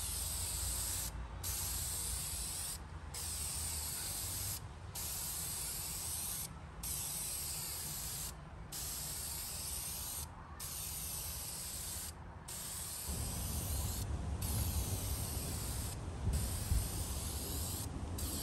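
Aerosol can of Minwax fast-drying polyurethane spraying a clear satin finish in repeated passes of nearly two seconds each, broken by short pauses, about ten in all. A low rumble joins in during the second half.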